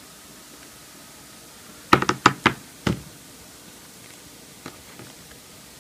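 A quick run of about five sharp knocks about two seconds in, then two faint ticks, over a steady low hiss. The knocks come from handling the media player against a desk.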